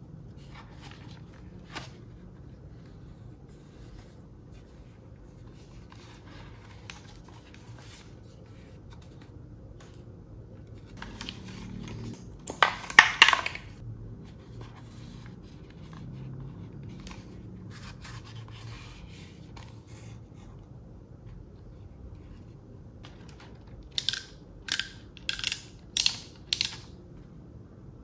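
Hands handling a Sweet Protection Falconer cycling helmet: faint rustling and scraping of straps and plastic parts, a loud cluster of clicks and scrapes about halfway through, and five or six sharp plastic clicks in quick succession near the end.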